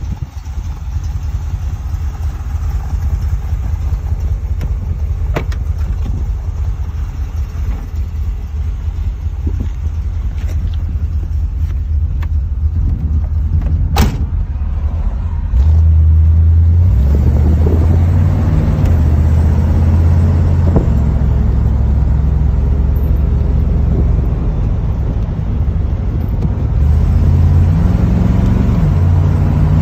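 A C3 Chevrolet Corvette's V8 engine running as the car is driven, a steady low rumble. About halfway through it gets louder and its pitch rises and falls in steps as the car speeds up and eases off. One sharp click comes just before that.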